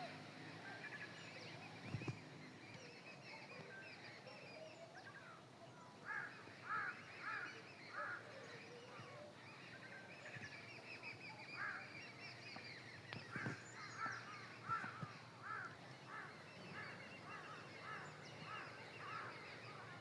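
Mixed bird calls: a steady twitter of small birds, with runs of a lower call repeated about twice a second. Two short knocks, about two seconds in and a little past the middle.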